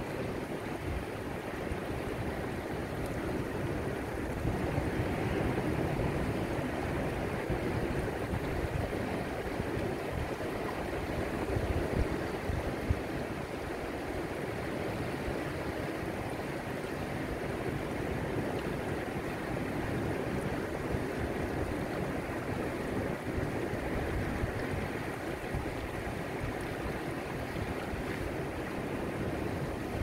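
Shallow ocean surf washing in over sand and flat rocks at the shoreline: a steady rushing wash that swells and eases slowly every several seconds.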